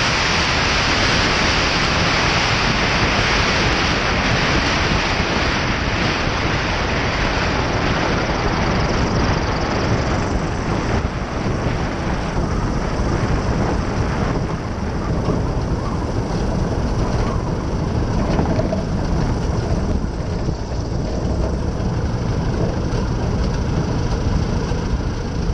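Van's RV-10 light aircraft rolling out on the runway after landing: loud rushing air and rolling noise past the wing-mounted camera, which thins out from about ten seconds in as the plane slows, leaving the low steady sound of the engine idling with the propeller turning.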